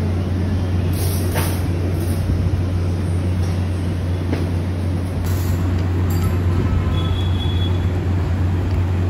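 A steady low hum over a constant rumble of background noise, with a couple of faint ticks.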